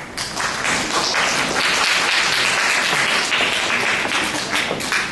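Audience applauding. The clapping starts abruptly and begins to thin near the end.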